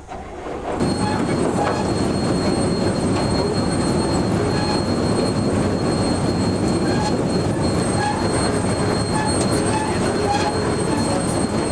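Grimme potato harvester's conveyors and machinery running, with a dense steady rattle and a thin high whine. The noise sets in about a second in.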